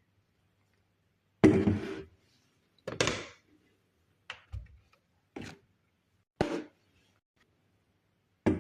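A series of six short knocks and clatters about a second apart, the first the loudest, as things are handled and set down.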